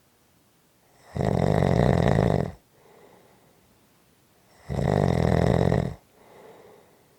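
Snoring: two loud snores about three and a half seconds apart, each followed by a faint breath out.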